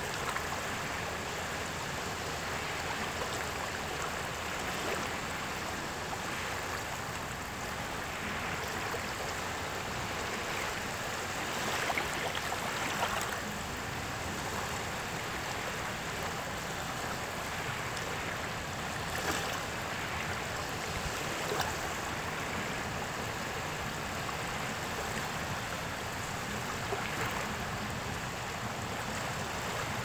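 Small waves lapping at the shoreline: a steady wash of shallow water over sand, with a few brief louder splashes as ripples break at the water's edge.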